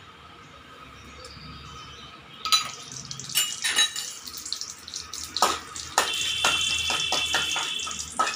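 Mustard seeds spluttering in hot coconut oil in an aluminium kadai. A faint sizzle at first, then scattered sharp pops and crackles from about two and a half seconds in, and a louder steady sizzle with popping from about six seconds in. Near the end a spoon stirs in the metal pan.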